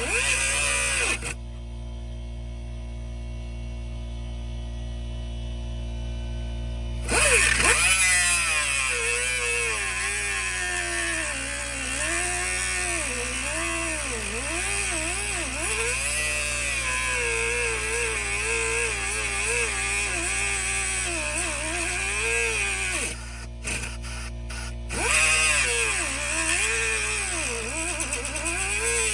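A hand-held power tool, such as a drill or grinder, runs in spells. Its whine rises and dips in pitch as the load changes. It cuts out about a second in, starts again about seven seconds in, and pauses briefly near the end.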